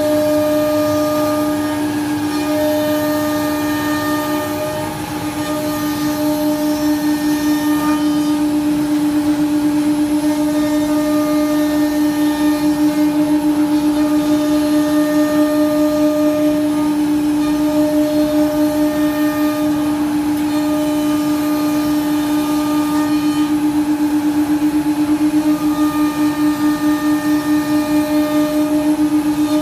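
CNC wood router cutting a sheet of board, its spindle running with a steady, unchanging hum and overtones over the hiss of the cut and dust extraction. The level dips briefly about five seconds in.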